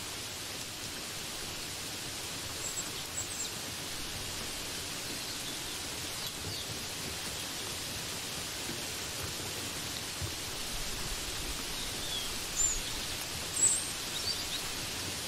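Steady hiss of rain, with a few short high bird chirps scattered over it, the two loudest near the end.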